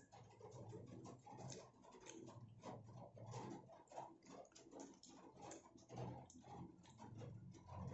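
Faint close-up eating sounds: chewing and mouth clicks, with light crackles of a paper burger wrapper and a plastic spoon in a paper soup cup, several small clicks a second.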